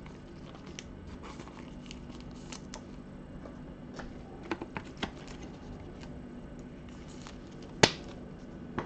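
Basketball trading cards being handled in gloved hands: faint rustling and light taps of cards, with a single sharp click near the end.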